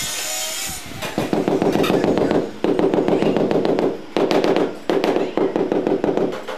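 A rubber mallet tapping a large floor tile rapidly to bed it down into the mortar, in four quick runs of knocks with short pauses between them. A steady high hiss stops about a second in, before the tapping starts.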